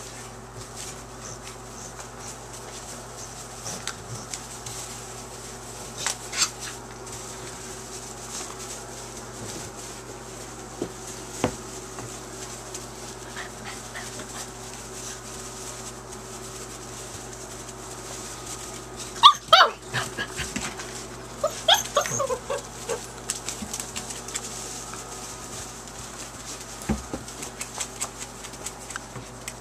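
Young puppies play-fighting, with a cluster of high-pitched yips and small barks about two-thirds of the way through and scattered scuffles and clicks in the wood shavings. A steady low hum runs underneath.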